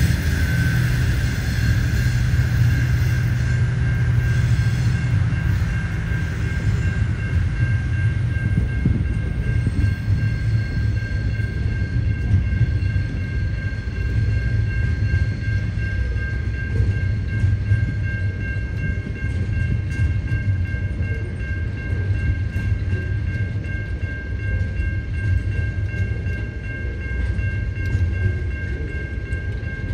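Container freight wagons rolling past at a steady speed: a low rumble of wheels on rail with faint scattered clicks, over a steady high ringing tone that keeps the same pitch.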